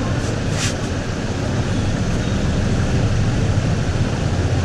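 Steady low rumble of background noise, with a brief hiss about half a second in.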